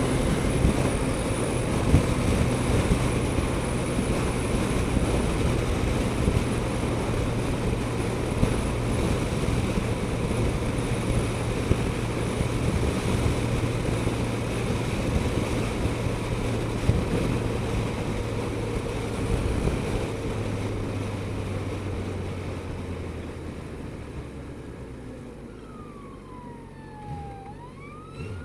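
Suzuki GSX-S1000GT's inline-four engine running as the bike rides along, with wind and road noise. The sound grows quieter after about twenty seconds, and near the end a siren wails, falling and then rising in pitch.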